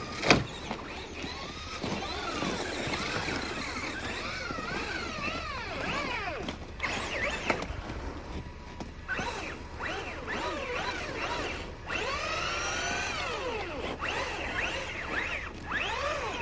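Two radio-controlled trucks, a Redcat Volcano and a Traxxas Rustler, driving in snow, their motors whining up and down in pitch over and over as the throttle is blipped. There is a sharp knock just after the start.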